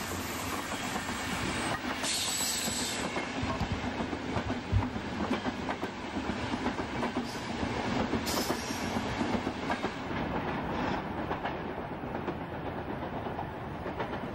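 Passenger train running on rails, wheels clattering over the rail joints above a steady rumble. Brief hissing bursts come about two seconds in and again about eight seconds in.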